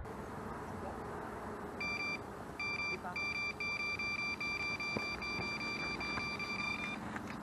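Electronic carp bite alarm sounding a fast, almost unbroken stream of high beeps, starting about two seconds in and stopping near the end: a fish is running with the line.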